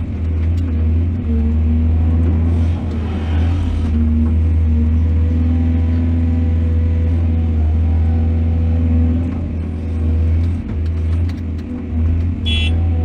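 Excavator diesel engine running steadily with a deep drone, wavering a little in its last few seconds. A brief high-pitched squeal near the end.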